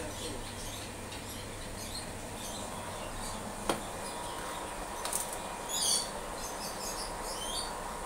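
Short high chirps from small caged birds, scattered and busiest a little past the middle, over the steady hiss of aquarium air pumps bubbling water through the tanks. A single sharp click comes about three and a half seconds in.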